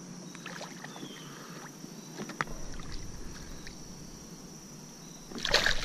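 Water lapping faintly around a kayak with a few light clicks and ticks, then a short loud splash near the end as a small hooked fish is hauled up thrashing at the surface beside the kayak.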